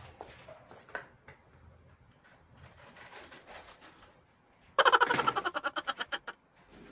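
A burst of rapid, fading laughter about five seconds in, after a few faint clicks.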